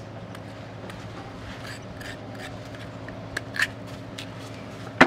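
Kitchen knife scraping and cutting raw cassava root by hand, a scatter of soft short scrapes and clicks over a faint steady low hum. A sharp knock, the loudest sound, comes right at the end.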